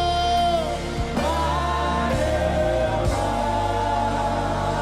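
Live gospel worship music: a singer holds a long note that falls away under a second in, over sustained keyboard chords and a steady bass, with a soft beat about once a second.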